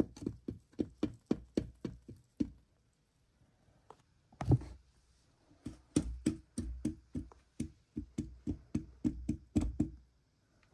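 Light, quick tapping on a small container, about four taps a second in two runs, with a pause broken by one heavier knock about four and a half seconds in.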